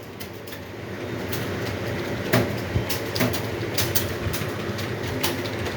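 Computer keyboard keys pressed slowly and unevenly, about two or three sharp clicks a second, over steady background noise.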